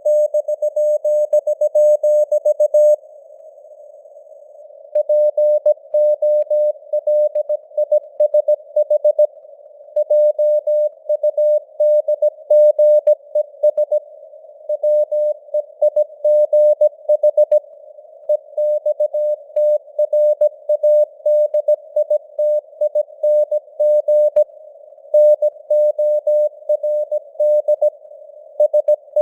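Morse code at 17 words per minute: a single tone of about 600 Hz keyed on and off in dots and dashes, with short pauses between words. It sits over a narrow band of simulated radio hiss, and the signal strength fades up and down (QSB).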